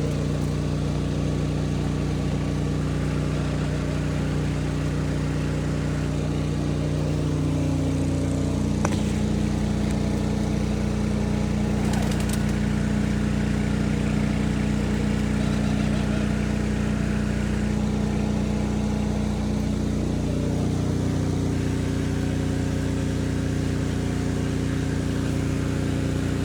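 A motor running steadily with a low hum that shifts pitch twice, with a couple of faint clicks.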